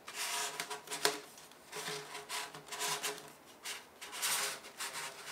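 Thin titanium stove chimney being handled and worked by hand: repeated bursts of scraping and rubbing metal, with a sharp click about a second in.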